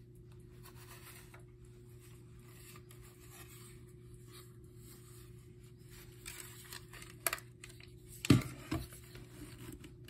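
Hands rubbing and scraping on the plastic housing of a First Alert 7010B smoke alarm while working at its battery pull tab, with a couple of light knocks about eight seconds in, over a faint steady hum.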